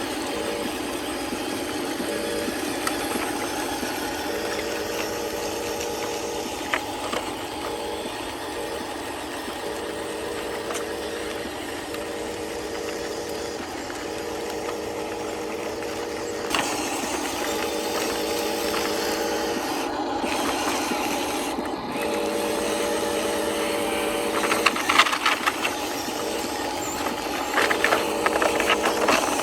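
Small electric motors and gearboxes of RC construction models whining steadily, with a warbling tone that starts and stops every few seconds. Bursts of rattling come near the end.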